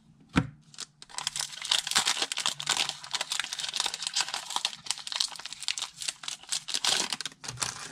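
A single tap, then a foil Pokémon TCG booster pack wrapper crinkling and tearing for several seconds as it is opened by hand.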